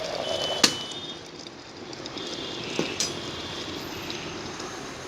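Metal clinks against an electric kettle as its contents cook: one sharp, loudest clink about half a second in that rings briefly, then two lighter clinks close together near the three-second mark, over a steady low bubbling hiss.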